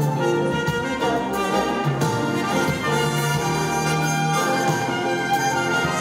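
A live symphony orchestra plays, its strings bowing held notes, while a solo trumpet plays the melody over them.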